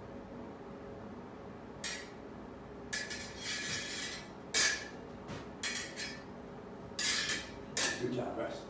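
Steel smallsword blades clinking and scraping against each other as the blades are engaged and pressed. The sound comes in about seven separate contacts, some short clinks and some longer slides of blade along blade.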